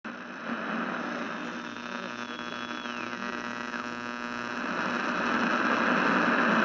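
Electrical hum and static hiss of an old television set switching on, with a thin tone that glides down in pitch about two to four seconds in; the static grows louder towards the end.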